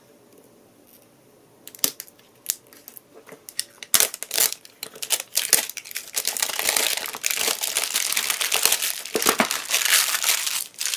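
Plastic shrink-wrap being torn and peeled off a small cardboard product box and crumpled in the hands. It starts as a few scattered crackles and becomes dense, continuous crinkling from about four seconds in.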